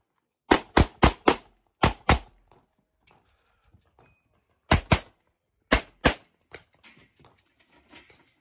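Handgun shots fired in quick succession: a fast string of four, then pairs of double-taps, with a pause of about two seconds partway through. Faint small clicks and knocks follow near the end.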